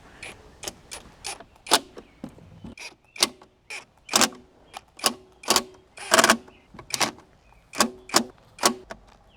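A series of sharp clicks and knocks, irregular at about two a second, several with a brief ring.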